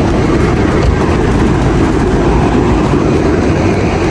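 Steady loud rumble of a Chevrolet Camaro 2SS on the move, road and engine noise with no break. It starts abruptly at a cut.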